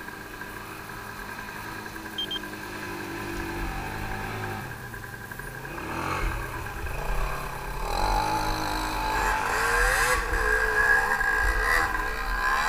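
ATV engine idling steadily, then revved several times, its pitch rising and falling and the sound growing louder over the second half.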